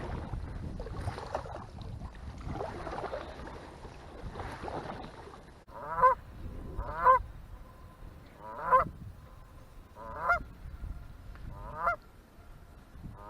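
Canada geese honking: a series of six single honks roughly a second and a half apart, starting about six seconds in. Before that there is only water noise with a low wind rumble.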